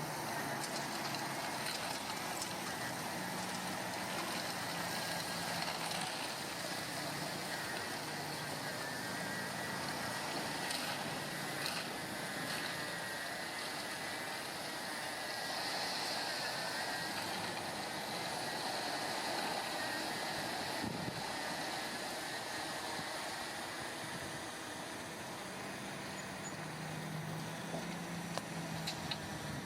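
Diesel engine of heavy earth-moving machinery running steadily, with a few light clicks and knocks over it.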